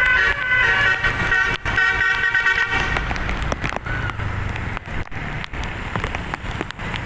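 A bus's multi-note musical air horn (telolet basuri) plays a tune of quick, stepped notes and stops about three seconds in. A low engine hum with scattered clicks follows.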